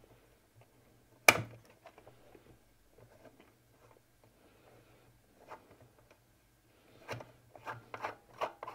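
Long-shaft screwdriver working a screw out of a hard plastic housing: faint scraping and ticking, one sharp click about a second in, and a run of clicks and scrapes near the end.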